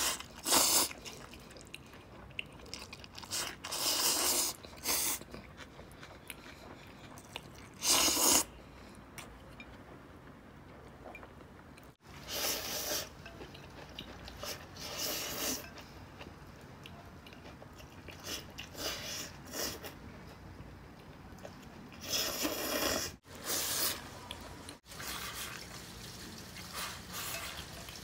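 A person eating instant noodles: loud slurps of noodles and chewing, in short noisy bursts every few seconds with quieter chewing between.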